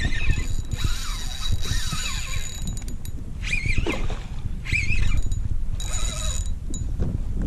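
Spinning reel's drag buzzing as a hooked redfish takes line: one long run in the first couple of seconds and a shorter one near the end.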